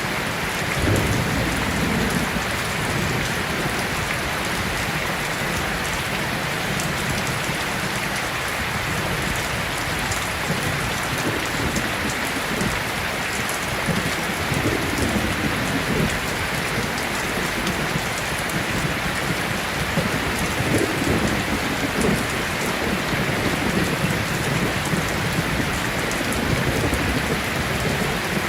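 Steady, dense rain falling, with low rumbling swells now and then, a bit after the start and again midway.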